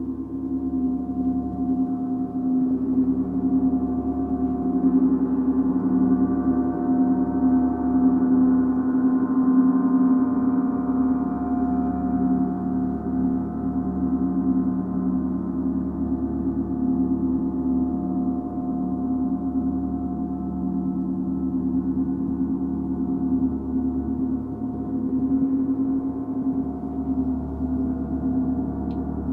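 A Paiste gong kept sounding by light, repeated mallet strokes from the wrist, building a continuous wash of overlapping low tones and higher shimmering overtones. It swells a little in the first third, then holds steady.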